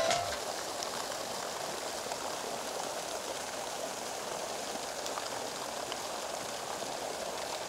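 Steady, even rushing background noise of an outdoor scene, with no distinct events standing out.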